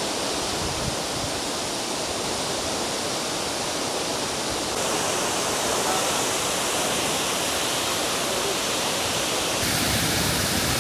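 Waterfall rushing in a steady roar of falling water; the sound shifts slightly in character about five seconds in and again near the end.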